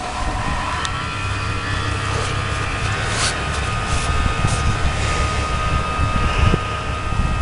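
A steady low engine rumble with a faint, steady whine above it.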